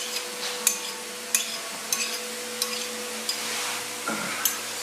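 A spoon stirring chicken and mayonnaise in a bowl, with sharp irregular clicks and scrapes against the bowl. A steady low hum runs underneath.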